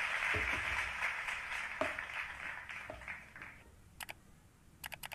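A clapping crowd, most likely an edited-in applause effect, fading out over the first three seconds or so, with a soft thump and a couple of light knocks under it. Then a few sharp clicks near the end.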